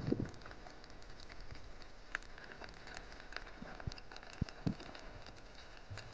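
Faint underwater reef ambience: scattered clicks and crackles over a low hiss, with a short low thud right at the start and a few soft low knocks later.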